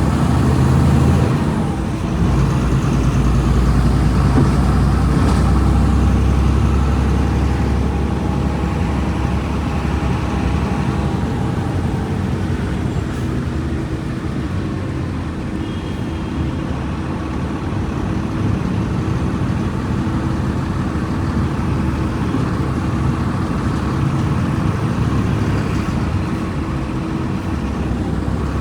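Diesel engine of a Volkswagen Volksbus 17.230 EOD bus running. It is louder for the first six seconds or so, then eases to a steadier, slightly lower level.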